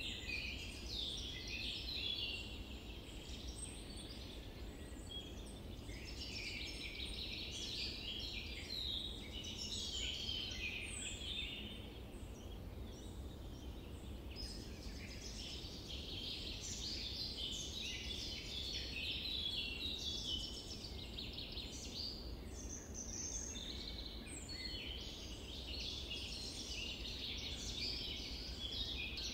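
Chorus of many small birds chirping and twittering without a break, over a steady low background rumble.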